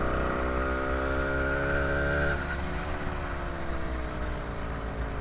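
80cc four-stroke motorized-bicycle engine running while riding, holding a steady note. About two seconds in, its pitch sags a little and it softens as the throttle eases off.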